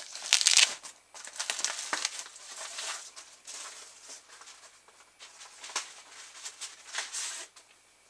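Plastic glove packaging crinkling and rustling as it is handled and opened, in irregular bursts, loudest about half a second in.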